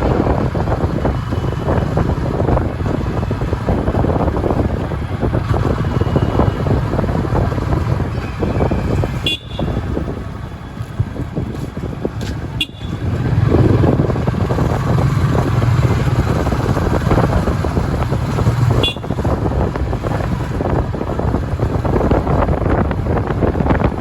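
Busy road traffic: a steady mix of car, motorcycle and truck engines and tyre noise, with occasional horn toots. The low rumble swells for a few seconds past the middle, and the sound cuts out for an instant three times.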